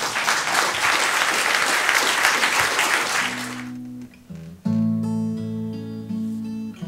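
Audience applause that fades out after about three and a half seconds, as an acoustic guitar starts up: a few notes, then strummed chords ringing from a little before five seconds in.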